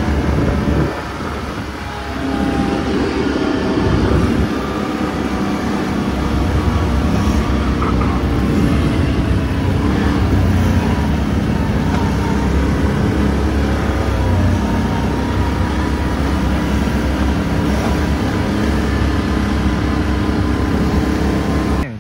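Off-road vehicle engine running steadily while riding along a dirt road, heard from aboard, with a deep rumble throughout. The sound drops briefly about a second in, then carries on at an even level.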